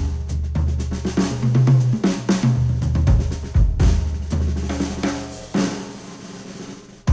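A music track with drum kit and bass, played through Sennheiser HD800 S open-back headphones and picked up by microphones at the earcups. The band thins out and gets quieter over the last second or so, then comes back in at full level right at the end.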